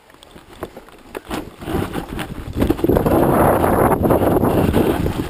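Wind buffeting the microphone of a camera moving fast along a forest trail. It starts low, builds about a second and a half in, and is loud and fluttering from near the three-second mark.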